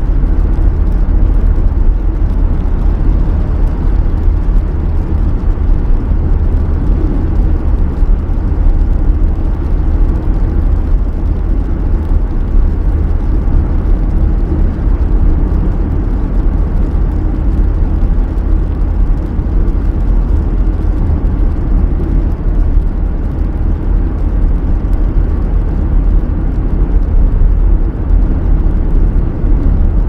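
Steady low rumble of a car driving in the rain, heard from inside the cabin: tyre and road noise on wet pavement, even throughout with no distinct events.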